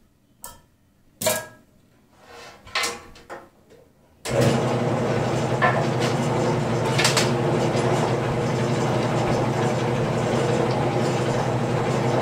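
A few light clicks and clinks of metal tools being handled, then about four seconds in a wood lathe starts and runs steadily, a continuous hum and whir as it spins a roughed-out mulberry bowl.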